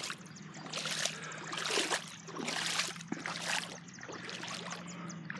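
Legs wading through knee-deep floodwater, a swish and slosh of water with each stride at a steady walking pace.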